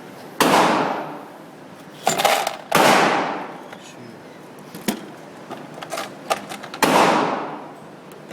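Sig Sauer P229 pistol in .40 S&W firing about four shots, spaced irregularly, each with a long echoing tail. Smaller sharp clicks and knocks fall between the shots.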